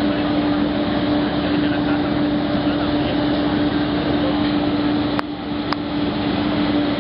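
Fire engines' diesel engines running steadily at raised revs to drive their pumps, which feed the aerial ladders' master streams: a loud, unchanging hum over a wide rushing noise. A brief dip and two sharp clicks come a little after five seconds in.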